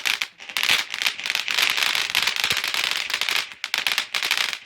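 Lit consumer firework going off with dense, rapid crackling pops over a hiss, thinning out about four seconds in.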